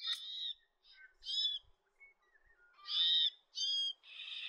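White-winged choughs calling: a series of about six short, high calls in quick succession, the loudest about three seconds in.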